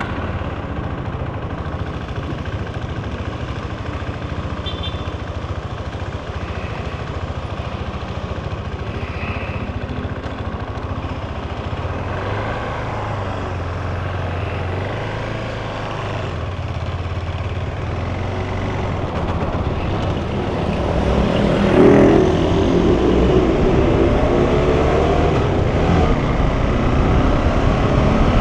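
KTM 390 Adventure's single-cylinder engine running at low speed with road and traffic noise. About three-quarters of the way through it gets louder and its note rises as the bike accelerates.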